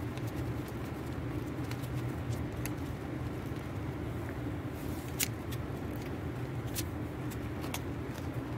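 A steady low background hum, with scattered light clicks and crinkles from banknotes and gift-wrap paper being handled; the sharpest click comes a little after the middle.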